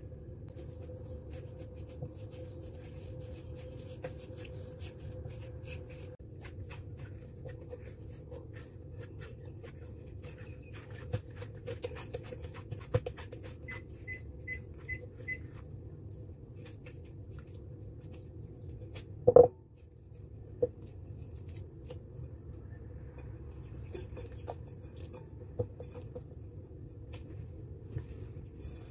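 Hands kneading and shaping soft bread dough on a silicone mat: faint scattered taps and handling sounds over a steady hum, with four short high beeps around the middle and one loud thump about two-thirds of the way through.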